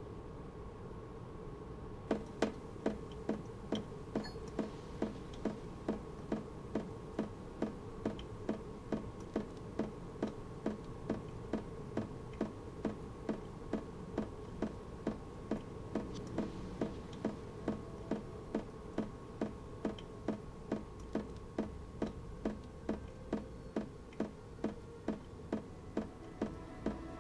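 Kitchen tap dripping into a stainless steel sink: sharp, evenly spaced drips, about two a second, starting about two seconds in. Under them is a faint steady hum.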